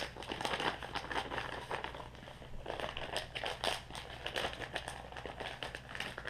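Plastic bag of soft plastic fishing baits crinkling and rustling in the hands, with small irregular crackles throughout.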